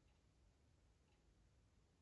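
Near silence: faint room tone, with faint ticks about once a second.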